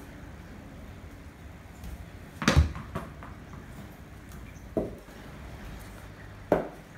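Cricket bat and tennis ball knocking, with the ball bouncing on a tiled floor: a sharp knock about two and a half seconds in, the loudest, with a lighter one just after, another near five seconds, and one near the end.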